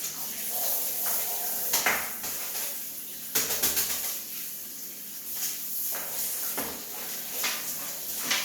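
Wet steam mop cloth being scrubbed to lift out the grime, in irregular scraping and rubbing strokes over a steady hiss.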